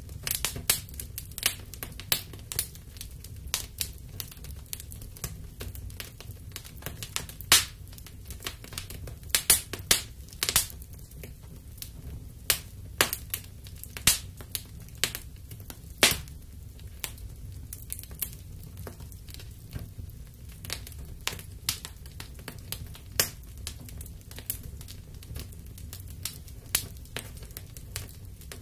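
A burning fabric puppet's flames crackling, with irregular sharp snaps several times a second over a steady low rumble.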